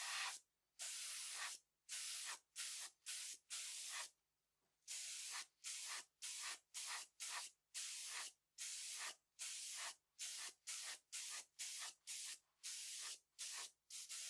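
Gravity-feed HVLP paint spray gun hissing in many short trigger pulls, about two a second with a pause about four seconds in: paint dusted lightly over the edge of a spot repair to blend the new paint into the old.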